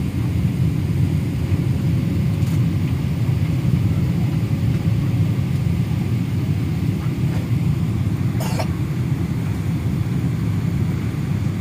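Airliner cabin noise during landing: a steady low rumble of engines, airflow and runway, heard from a window seat. A brief sharp noise cuts in about eight and a half seconds in.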